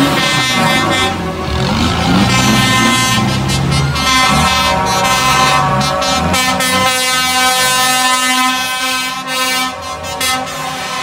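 Air horns on passing lorries sounding in long held notes, several tones together. Underneath, in the first half, the low rumble of the lorries' diesel engines rises and falls as they pass, then fades.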